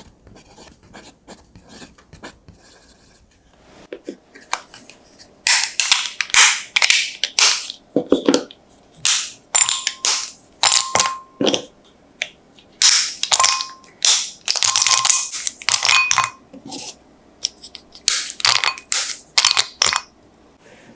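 A bar of chocolate being snapped by hand into small pieces, a quick run of crisp snaps in flurries with pieces clinking into a glass bowl. The snaps start about five seconds in and stop shortly before the end.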